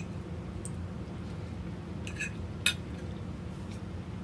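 Metal fork clinking against a ceramic plate while cutting into cake, a few sharp clicks with the loudest about two and a half seconds in, over a low steady hum.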